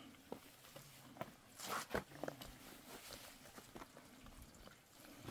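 Faint scattered clicks and a brief rustle about two seconds in, from a small smoky brazier fire being tended and fed with dry material to make mosquito smoke.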